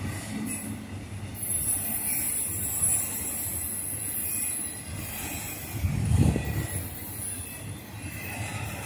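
Freight train of autorack cars rolling past with a steady low rumble and a high-pitched wheel squeal that comes in about a second and a half in. A louder low thump comes about six seconds in.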